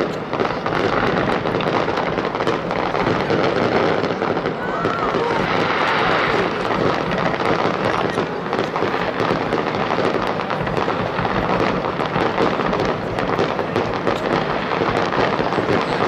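Fireworks display: aerial shells bursting in a dense, unbroken barrage of bangs and crackle.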